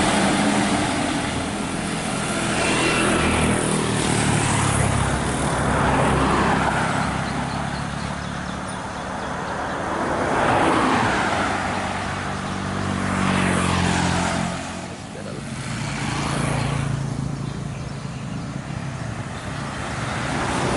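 Road traffic passing close by: several vehicles go past one after another, each rush of engine and tyre noise swelling and fading, over a steady engine hum.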